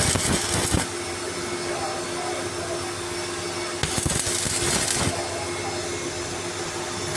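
A power machine running with a steady hum, joined twice by a harsh hissing noise about a second long: once at the start and once about four seconds in.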